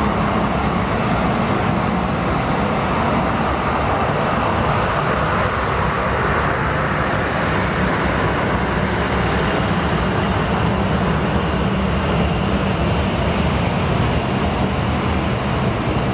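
Boeing 737-700's twin CFM56 turbofan engines running at low taxi power as the airliner taxis past, a steady jet noise.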